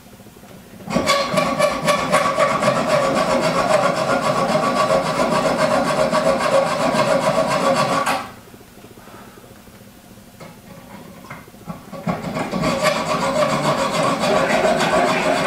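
Protruding steel screw ends on a rifle trigger guard, clamped in a bench vise, being cut and filed down flush: a steady metal-on-metal scraping that runs for about seven seconds, stops, and starts again about twelve seconds in.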